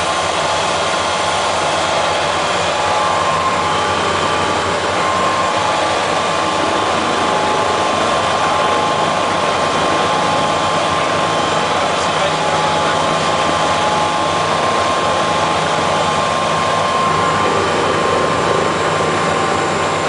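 Bell 427 helicopter heard from inside the cabin: its twin turboshaft engines give a steady whine with several high tones over a constant rush of rotor and airflow noise, during the landing on a helideck.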